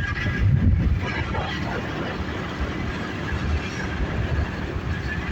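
Steady rumble and running noise of a moving vehicle carrying the recorder along, heaviest in the low end and with no clear beat.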